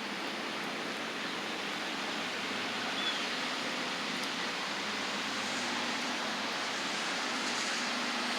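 Steady rain falling, an even hiss, with a brief high chirp about three seconds in.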